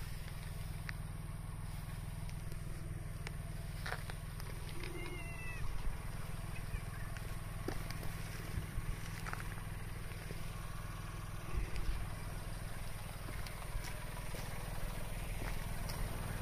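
Cats handled close to a phone: a steady low rumble with rustles and clicks from the phone being handled, and a brief high chirp from a cat about five seconds in.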